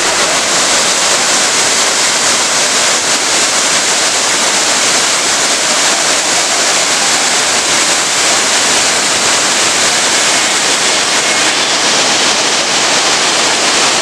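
Cheeyappara waterfall's water cascading down the rock face in a loud, steady rush.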